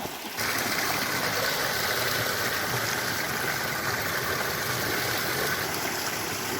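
Fast mountain stream rushing over rocks, a steady full-range hiss of water that gets louder about half a second in.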